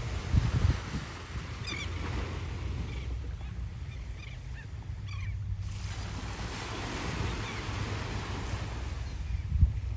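Small waves washing onto the beach, with wind buffeting the microphone in low rumbling gusts, strongest just after the start and again near the end.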